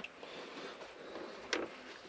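Faint workshop handling noise: a light click at the start and a single knock about one and a half seconds in.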